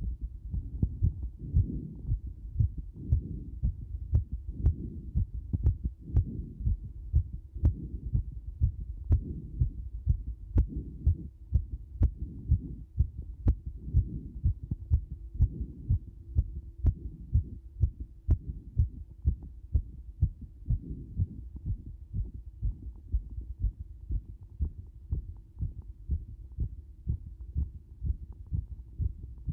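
A human heart beating fast and regularly, heard as a quick, even run of low thuds. A faint steady hum joins it in the second half.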